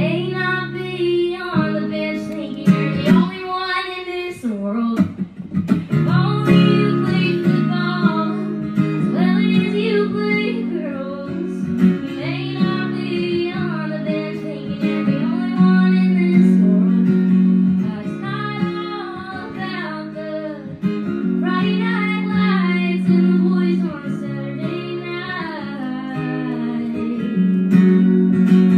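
A woman singing over her own strummed acoustic guitar in a live solo performance of a country song.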